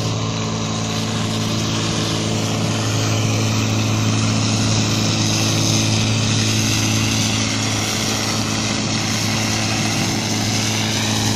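Portable fire pump engine running steadily under load, feeding two hose lines whose water jets are spraying, with a steady hiss over the engine note.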